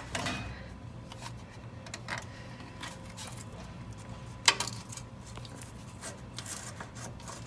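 A few light metallic clicks and clinks as an oil filter wrench is fitted to and worked on the oil filter, with one sharper knock about four and a half seconds in, over a low steady hum.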